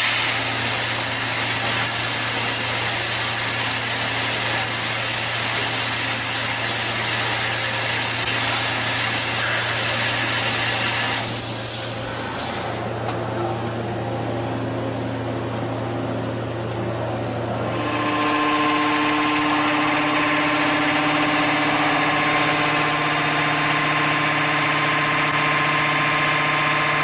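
CNC machine tool running: a steady motor hum with spindle whine and a high hiss of cutting. The hiss drops away about 11 seconds in, and the whine settles on a new pitch about 18 seconds in as the spindle speed changes.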